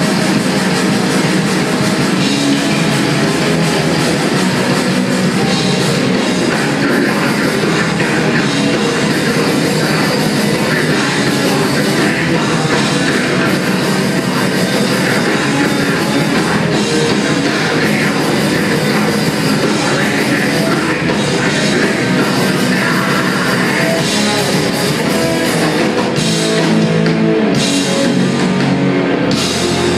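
Live heavy metal band playing loud, with electric guitars and a drum kit, and a singer at the microphone.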